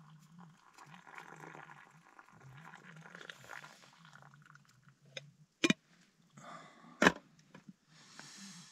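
Hot tea pouring from a small metal camping kettle into a metal mug, then two sharp metallic knocks about a second and a half apart as the kettle is set back down on the camping gas stove's pot supports.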